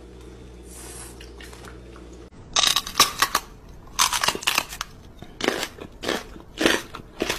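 About two seconds in, a low steady hum gives way to a man making loud crunching, chewing noises in short bursts, about eight in five seconds, as if biting into and eating a dog's ear.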